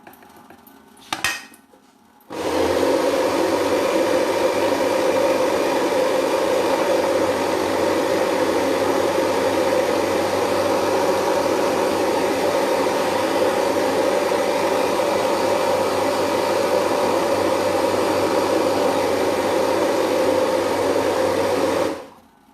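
Electric blender grinding turmeric root, preceded by a click about a second in, then running loud and steady for about 20 seconds before cutting off suddenly near the end.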